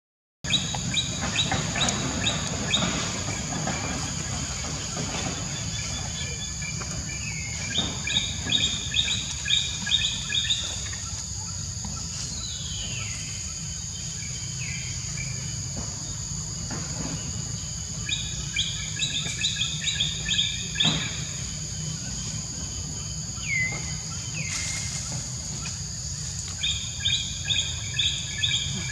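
Forest ambience: a bird calls in four bursts of rapid chirps, with a few short falling whistles in between, over a steady high insect drone.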